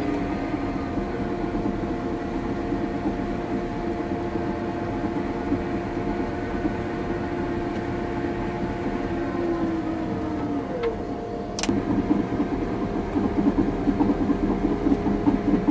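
Caterpillar D6 bulldozer's diesel engine running steadily, heard from inside the cab while the dozer pushes a load. About ten seconds in its pitch dips a little, a sharp click follows, and the running turns rougher and somewhat louder.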